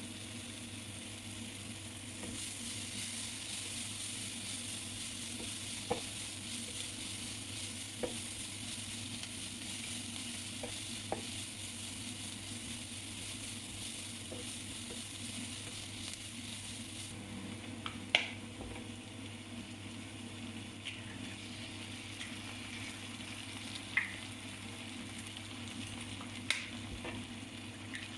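Kottu roti frying and sizzling on a hot griddle as it is stirred, with a handful of sharp clinks spaced several seconds apart. The sizzle eases a little over halfway through.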